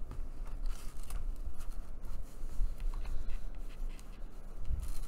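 Hands handling a paper-covered journal and its elastic cord: irregular light rustling, rubbing and scratching of paper and card, with a few soft knocks on the table.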